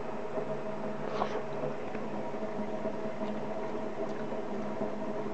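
A steady mechanical hum with a few faint soft clicks from a person chewing a bite of a steamed fish cutlet.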